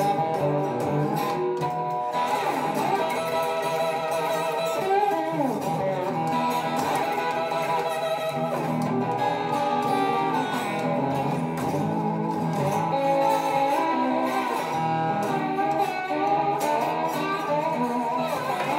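Chibson Firebird copy electric guitar, plugged in and played with a slide: picked notes and chords with notes gliding up and down in pitch.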